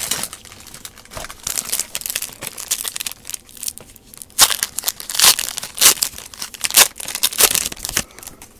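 Foil wrapper of a 2017 Leaf Draft football card pack crinkling and tearing as it is opened, in irregular crackles that are loudest in the second half.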